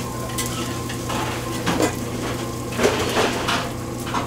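Metal spatula scraping and clanking on a steel flat-top griddle several times, loudest about three seconds in, over the steady sizzle of machacado (dried beef with onion, tomato and green pepper) frying, with a constant low hum underneath.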